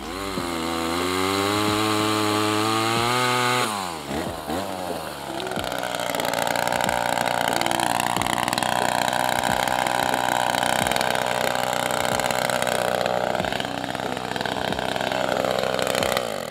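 Chainsaw revving up, easing off briefly about four seconds in, then running at a steady high speed with two short dips in pitch, and cutting off near the end.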